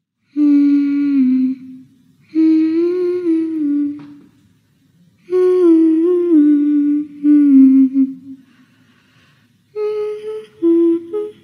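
A high voice humming a slow, wavering lullaby-like tune in short phrases with pauses between them, turning to higher, choppier notes near the end.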